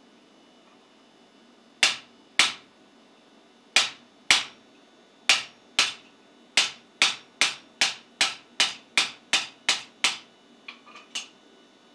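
Hand hammer striking a guillotine-style tool on the anvil, forging a tenon on a hot steel bar. Sharp ringing blows come first in three pairs, then in a steady run of about ten at roughly two and a half a second, and end with a few lighter taps.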